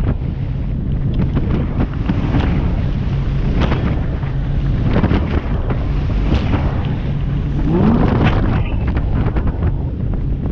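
Wind buffeting the microphone over the steady drone of a Searider rigid inflatable boat's engine running at speed through choppy sea, with repeated splashes of spray and water against the hull. A brief rising whine comes about eight seconds in.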